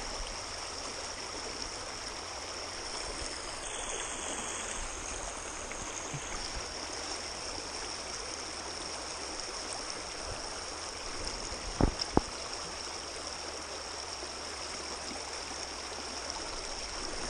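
Small rain-swollen gravel creek running steadily, rushing and trickling. About twelve seconds in, two or three sharp knocks come in quick succession.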